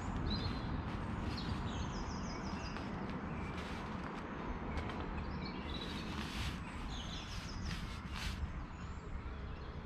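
Wild birds singing, with quick high chirps and trills coming and going, over a steady low rumble.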